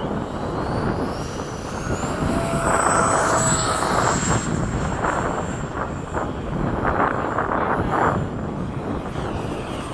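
High whine of a 70mm electric ducted-fan F/A-18 model jet making a fast pass. The whine rises and peaks about three to four seconds in, over a steady low rush of wind on the microphone.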